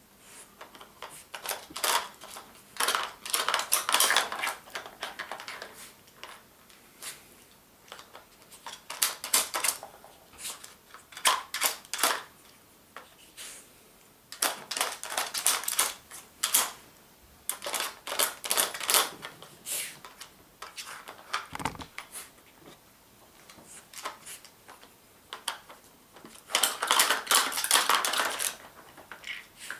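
Plastic pieces of a Nina Ottosson Dog Brick puzzle toy clattering and clicking as a dog noses and paws at them, in repeated bursts of rapid clicks with short pauses between.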